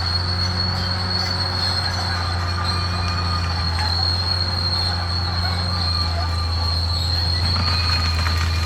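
Caterpillar D6R XL bulldozer's diesel engine running with a steady low drone, and a constant high-pitched squeal from its steel tracks.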